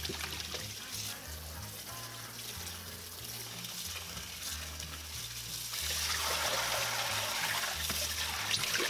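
Kitchen tap water running and splashing onto napa cabbage leaves in a plastic colander in a stainless steel sink as the cabbage is rinsed by hand; the splashing grows louder about six seconds in. Soft background music with a low bass line plays underneath.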